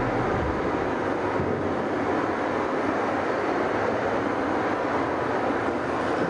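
Steady, loud rush of a powerful river's water, played as the soundtrack of an immersive exhibit on the force of the river.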